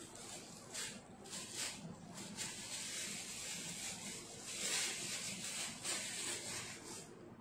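Soft, intermittent rustling and light scraping from gloved hands working on and around a cake, busiest about two-thirds of the way in.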